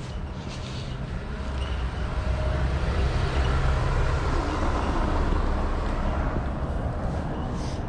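A car driving slowly past on a cobblestone street: a low engine hum with tyre rumble, growing louder to a peak about halfway through and easing off near the end.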